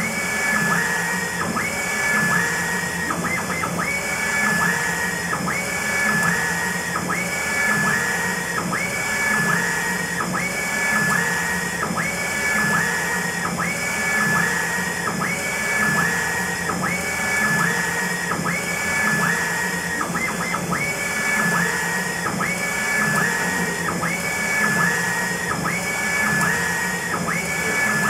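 UV flatbed inkjet printer printing, its print-head carriage shuttling back and forth across the bed. The drive's whine rises and falls in a regular cycle of about a second over a steady whirring hiss.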